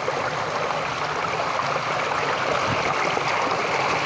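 Pond water gushing out of a drain opening under pressure: a steady rush of splashing, foaming water that grows a little louder.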